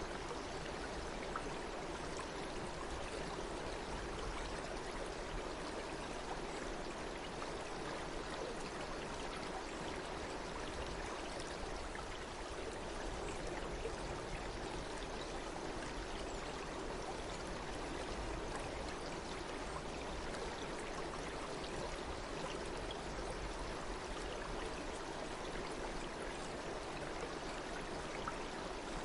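Flowing water, running steadily with no change in level.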